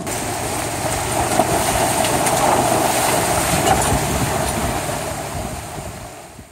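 Pickup truck driving through a rocky creek: rushing, splashing water churned up by its tyres, fading out near the end.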